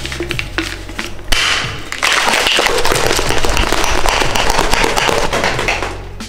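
Plastic shaker cup of water being shaken hard for about four seconds, a fast dense clatter and slosh. A sharp snap comes about a second in, as the lid is closed.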